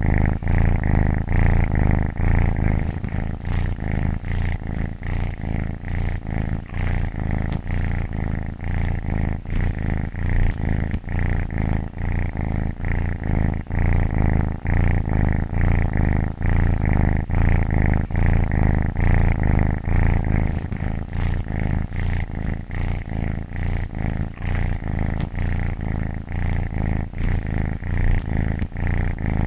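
Domestic cat purring steadily, a continuous low rumble that swells and ebbs in a regular rhythm.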